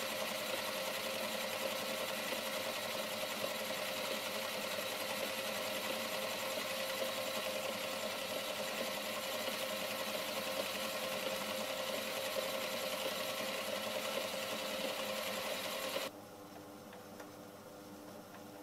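Myford ML7 lathe running steadily, turning a free-cutting mild steel (EN1A) axle between centres on a light cut, with a steady whine from the motor and gearing. The sound cuts off suddenly near the end, leaving a faint hum.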